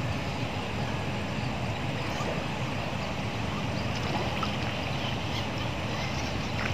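Steady low wind rumble on the microphone beside open water, with faint small splashes and ticks from fish caught in a spring-net rig being drawn up to the surface.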